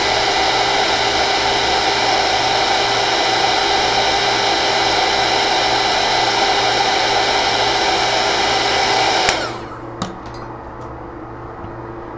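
Heat gun blowing steadily to dry wet watercolour paint on paper. It runs with a faint motor whine, cuts off about nine seconds in, and a short click follows.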